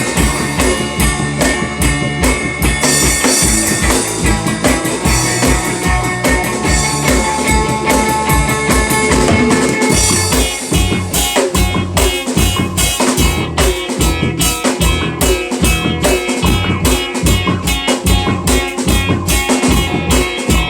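Rock band playing an instrumental passage on drum kit and guitar with a steady beat. About halfway through, the drumming changes to sharper, evenly spaced hits.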